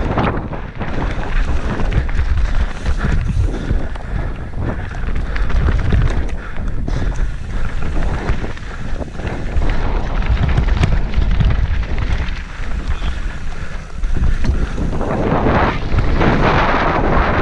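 Wind buffeting a helmet camera's microphone at speed, over the rumble and rattle of mountain bike tyres on a stony trail, with frequent small knocks from the bike. The rattle gets louder and harsher near the end over loose rock.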